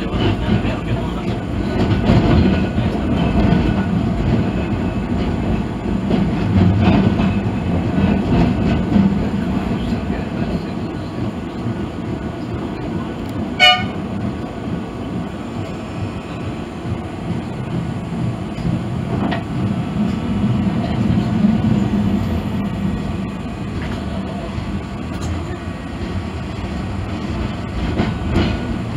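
Blackpool 'Millennium' double-deck tram 707 running along street track, heard from the driver's cab: a steady rumble of motors and wheels that swells and eases. About halfway through there is one short, sharp ringing tone, the loudest moment.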